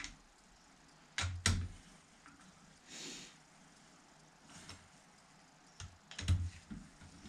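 Hand tools working on a Fordson Major tractor engine's cylinder head: sharp metal clicks and knocks, two close together about a second in and a cluster around six seconds, with a short rustle between them.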